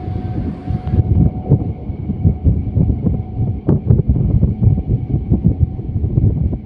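Wind buffeting the microphone on a moving electric local train, over the train's running rumble, with a few sharper clicks.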